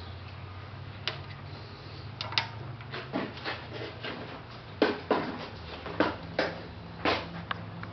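About a dozen irregular light clicks and knocks of metal being handled at a mini lathe, the workpiece and chuck area being touched and set down, over a steady low hum.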